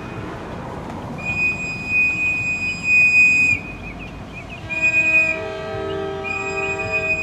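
EMD GP38 diesel locomotive's horn sounding a long blast, a short one and then another long one. This is the end of the long-long-short-long signal for a grade crossing. Beneath it runs the rumble of the train, with lower steady tones joining at about the time of the short blast.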